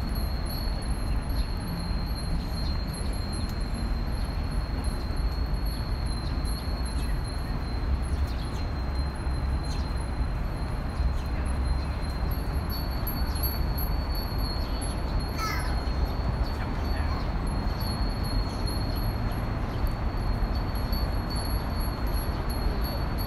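Japanese wind bells (furin) ringing continuously with a steady high tone, over low wind rumble on the microphone.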